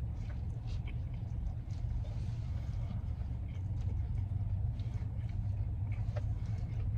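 Chewing a chicken wrap with the mouth close to the microphone: scattered small clicks and smacks over a steady low rumble.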